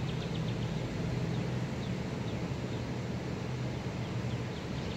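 Outdoor background: a steady low hum, with a small bird chirping a few short, high notes now and then.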